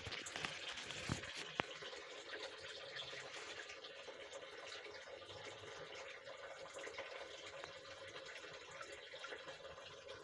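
Water running and trickling steadily, with a couple of faint clicks a little over a second in.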